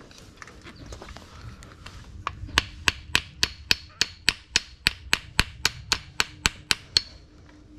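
Hammer blows in a quick, even run, about four a second. A few light taps come first, then about eighteen sharp strikes from about two seconds in, stopping near the end.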